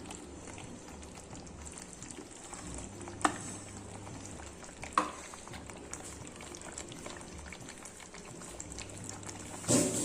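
Mutton curry sizzling in a pot as it is stirred, with a metal spoon clinking sharply against the pot twice. Just before the end, water is poured in with a loud rushing splash.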